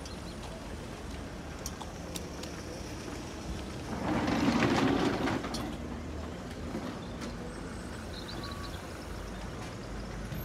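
Open-air background noise with a steady low rumble. About four seconds in, a louder rushing swell lasts a second or so, then fades.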